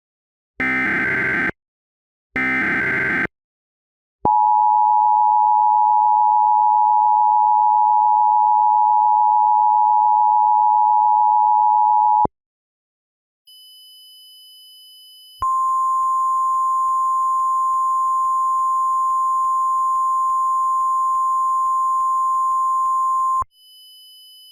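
Emergency Alert System alert signals: two short bursts of screeching digital header data, then the steady two-tone EAS attention signal held for about eight seconds. After a brief pause comes a second steady single-pitch alert tone for about eight more seconds, with faint high whines around it.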